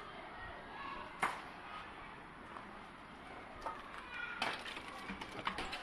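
Scrap wooden boards knocking and clattering as they are handled. There is one sharp knock about a second in, then a quick run of knocks in the second half.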